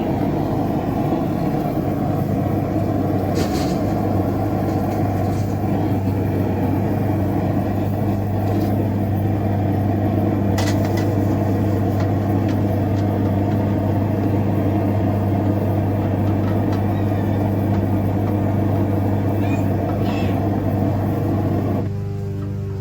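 Forge running with a steady, dense rush over a low hum, with a few faint metal clinks. Near the end it gives way to background music.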